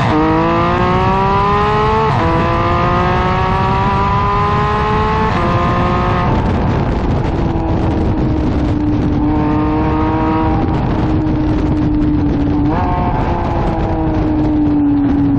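Porsche 991.1 GT3's 3.8-litre flat-six, fitted with an aftermarket center-section exhaust, accelerating through the gears: the pitch climbs and drops sharply at upshifts about 2 and 5 seconds in. It then settles to a steady cruise, and near the end the pitch jumps up with a downshift and eases down.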